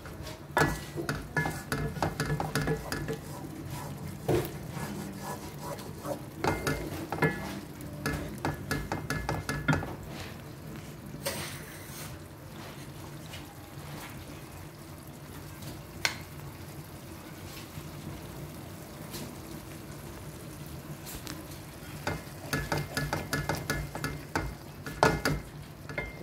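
Wooden spatula stirring and scraping a thick tomato-and-spice masala with potato chunks around a non-stick pan, over a steady sizzle of the masala frying in oil. The stirring comes in three spells, near the start, in the middle of the first half and near the end, with only the sizzle between.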